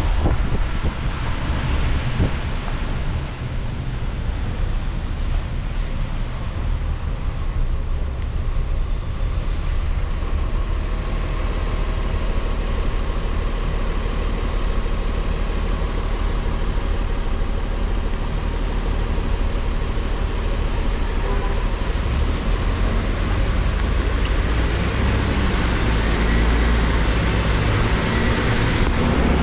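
Car driving through city traffic: a steady low rumble of engine and road noise under an even hiss, the low rumble swelling near the end.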